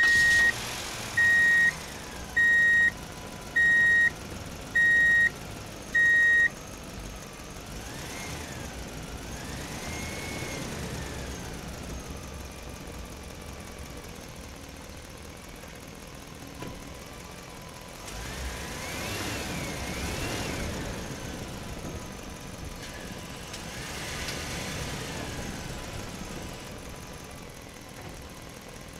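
Truck reversing beeper, six beeps about a second apart, followed by a quieter vehicle engine running, its pitch swelling up and down a few times.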